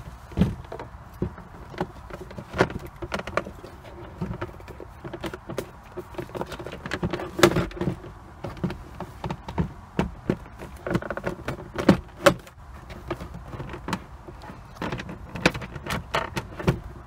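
Plastic glove box of a 2009 Toyota Camry clicking and knocking as it is fitted back onto its retaining clips and plastic rods and swung shut: many irregular sharp clicks and knocks, some louder than others.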